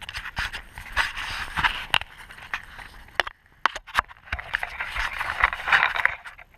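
Dry tinder and twigs being handled and pushed into a fire lay. Irregular rustling and scraping, with several sharp snaps, three of them about three to four seconds in.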